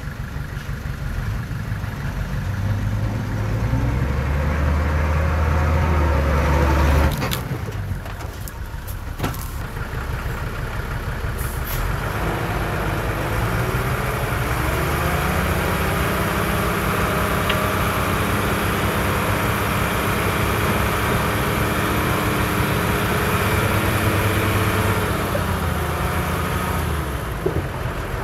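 Heavy diesel construction machinery running. A deep engine drone builds and holds for a few seconds, then cuts off abruptly about seven seconds in, followed by a few sharp clicks. A steady engine note carries on and eases off near the end.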